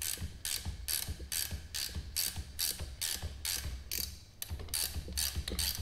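Ratchet clicking in quick, even back-and-forth strokes, about three a second, while the top nut of a Bilstein 5100 shock is being loosened with its spring held in a compressor.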